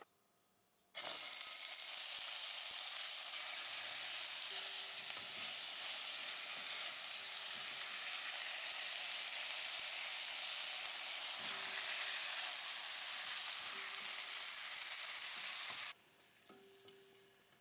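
Food sizzling as it fries in hot oil in a pan: a steady sizzle that starts suddenly about a second in and cuts off abruptly near the end.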